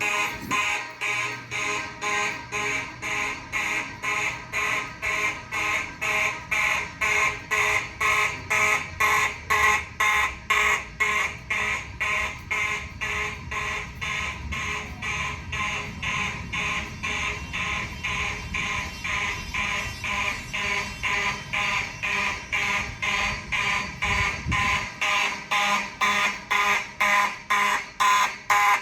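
Simplex 2903 fire alarm horn sounding in march time, a buzzing blast pulsing on and off at about two a second.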